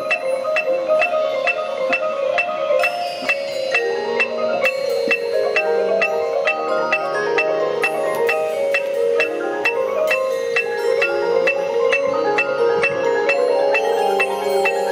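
Marching band front ensemble playing a mallet percussion passage: marimbas and glockenspiel strike a steady pulse with a repeated high note, over held mid-range notes.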